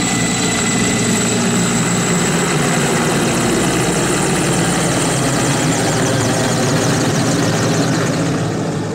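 Mi-8 helicopter flying past: the high whine of its twin turboshaft engines over a dense rotor drone. The whine eases after a few seconds and a fast blade chop comes through, then the sound drops off a little near the end.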